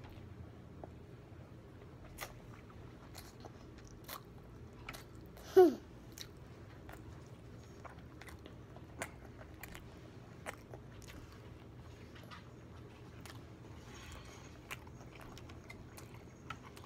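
A young child chewing a mouthful of sushi, with small wet mouth clicks and smacks scattered throughout. About five and a half seconds in comes one short, loud vocal sound falling in pitch.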